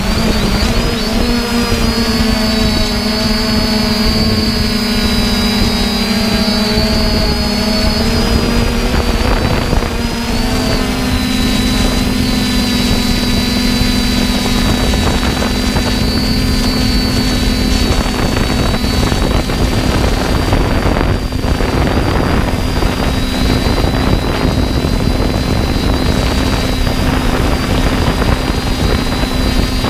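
3DR Iris+ quadcopter's brushless motors and propellers running in flight, a steady hum and high whine heard from the drone's own camera, with wind rushing over the microphone. The motor pitch steps up slightly about ten seconds in.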